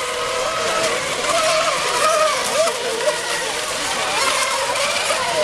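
Electric racing model boats running flat out, a high whine from their motors and propellers that wavers up and down in pitch as they turn and pass, over a steady hiss of spray.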